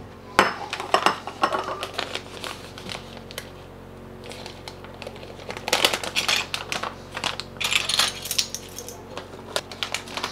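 Measuring spoon clicking and clinking against a ceramic bowl as dry jerky seasoning is spooned in, in scattered clusters of light taps and scrapes.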